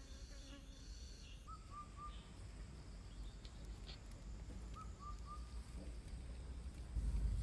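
A bird calling a quick phrase of three short notes, given three times about three seconds apart, over a steady low rumble that grows louder near the end. A high, thin, even buzz stops about one and a half seconds in.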